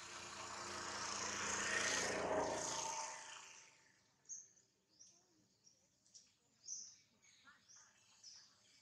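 A broad rushing noise swells, peaks about two seconds in and fades away by about four seconds. After it, small birds chirp in short, high calls.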